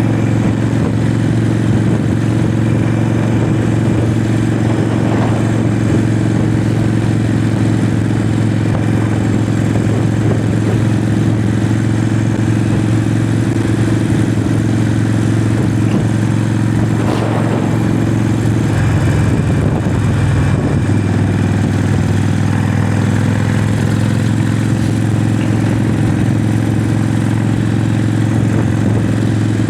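Harley-Davidson 48's 1200cc V-twin Evolution engine running steadily under way. Its note wavers and shifts briefly about two-thirds of the way through, then settles again.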